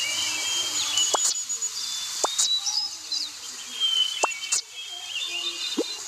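Birds chirping and whistling, many short calls with quick pitch sweeps overlapping one another.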